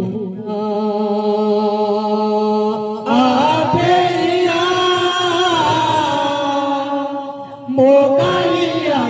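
Odia devotional kirtan singing. A male voice holds one long note, then about three seconds in the singing comes in louder and higher with a moving melodic line. It dips and then starts a new loud phrase near the end.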